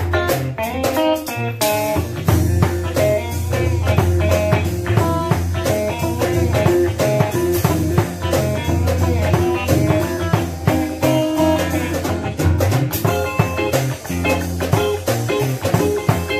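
Live blues played by an electric guitar over a drum kit, the guitar running lines of notes above a steady beat.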